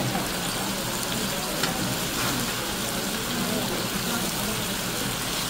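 Pork belly slices and wild mushrooms (shiitake and neungi) sizzling steadily in rendered fat on a hot griddle pan.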